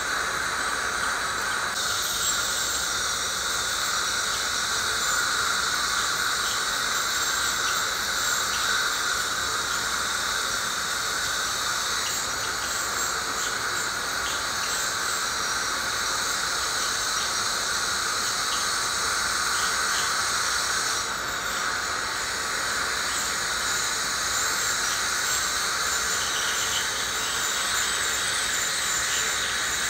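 Piezoelectric ultrasonic dental scaler (Woodpecker) running against heavily tartar-coated teeth: a steady high-pitched hiss and whine from the vibrating tip and its water spray, with small crackles as the tip works along the calculus.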